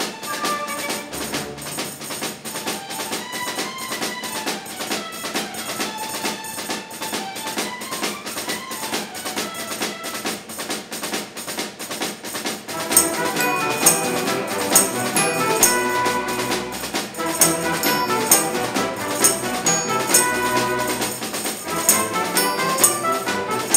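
A school orchestra of strings with a drum kit and hand percussion playing a piece over a steady, even beat. About halfway through, the full ensemble comes in and the music grows louder and fuller.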